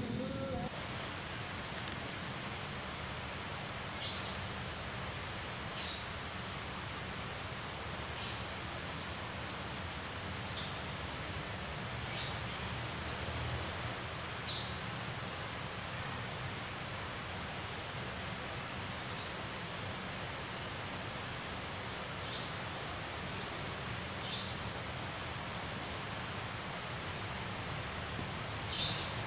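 Insects droning in vegetation: a steady high-pitched drone, with a rapid pulsed chirping trill of about eight pulses a second lasting about two seconds near the middle, and a few faint short calls scattered through.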